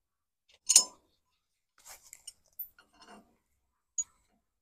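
Steel hitch hardware being handled: a pin and a steel bar with holes clinking against each other, one sharp metallic clink about a second in, then a few light taps and a short click near the end.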